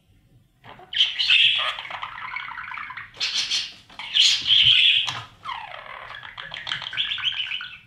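Budgerigars in a nest box giving harsh, raspy chirps and squawks in several bouts with short breaks, starting about a second in.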